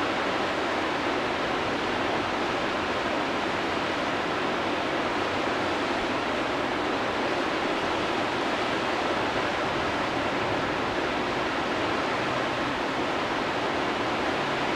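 Whitewater rapids of a river wave, a steady, even rush of churning water.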